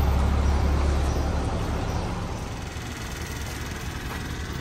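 Low vehicle engine rumble with street noise, fading away over the first two or three seconds.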